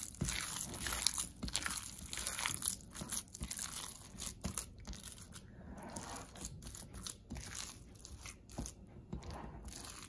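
Hands kneading and squeezing raw chicken mince mixed with chopped vegetables and spices in a bowl: an irregular run of soft squishing strokes.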